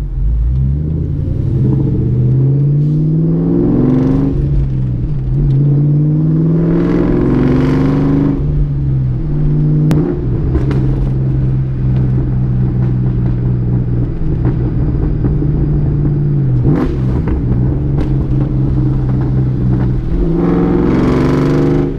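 2003 Ford Mustang SVT Cobra's supercharged 4.6-litre V8, heard from inside the cabin, pulling up through the gears of its manual gearbox. The engine note climbs several times, dropping at each shift, then holds a steady cruise in the middle and climbs again near the end.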